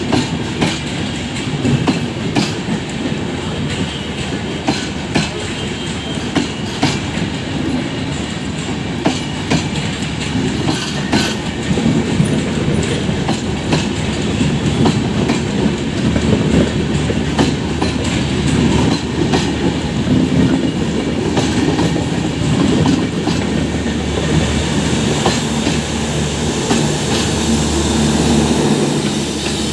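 A train running past close by, its wheels clicking and clattering over the rail joints with a steady rumble. Over the last few seconds a steady low drone rises under the clatter.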